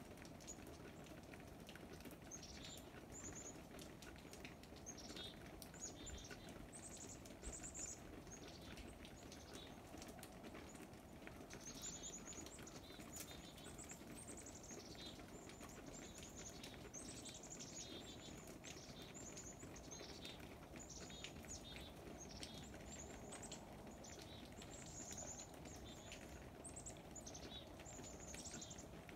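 Faint outdoor ambience of small birds chirping: many short, high, downward-sliding chirps repeat throughout over a low, steady background noise.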